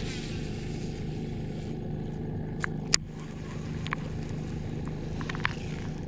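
Electric bow-mounted trolling motor running with a steady low hum, pushing the bass boat along. A few sharp clicks break through it, the loudest about three seconds in.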